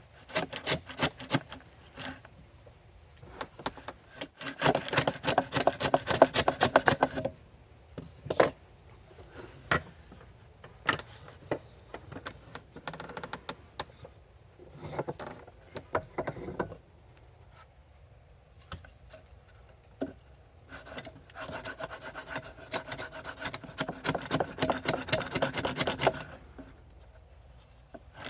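Hand tool cutting a groove across the end grain of a wooden panel: bursts of fast, rasping cutting strokes with pauses between them. Going against the grain this way leaves some blowout at the edge.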